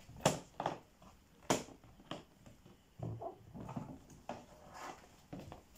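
Plastic latches of a Specna Arms hard rifle case being flipped open, a few sharp clicks and snaps in the first two seconds, followed by softer knocks and rubbing as the plastic lid is handled and lifted.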